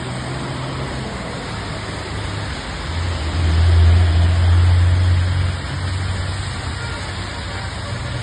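Bus engine running with road noise. Its low drone swells louder about three seconds in and eases off after about two and a half seconds.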